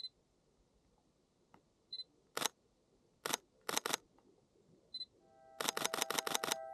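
Sony A7 III camera giving short high focus-confirmation beeps three times, with single shutter clicks in between, then a quick burst of about seven shutter clicks in continuous shooting near the end. Ringing singing-bowl music fades in under the burst.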